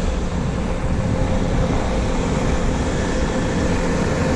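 A running engine: a steady mechanical drone with a constant hum.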